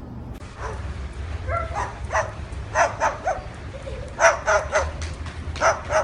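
A dog barks in short, sharp yaps, about ten of them, some single and some in quick pairs or threes.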